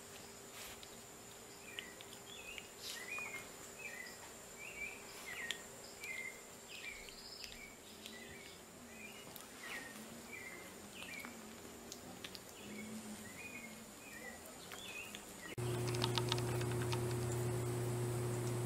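Short high chirps, about two a second, with soft scattered clicks. About three-quarters of the way through, they give way to a louder steady low hum.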